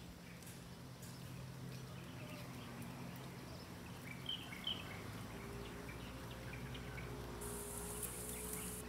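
Faint outdoor ambience: scattered short bird chirps over a steady low hum, with a high hiss coming in near the end.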